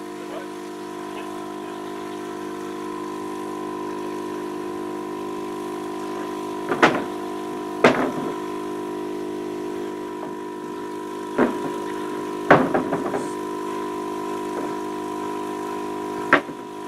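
A small motor runs steadily, giving a constant multi-pitched hum. Five sharp knocks from the framing work cut through it: two close together about seven seconds in, two more around eleven to thirteen seconds, and one near the end.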